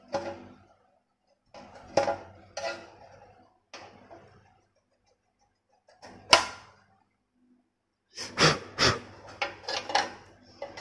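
Short clicks and rattles of a flat ribbon-cable connector being worked loose and pushed back into a digital weighing scale's display board, reseated to restore a contact that the repairer blames on dust. The sharpest click comes about six seconds in, and a quick run of clicks comes near the end.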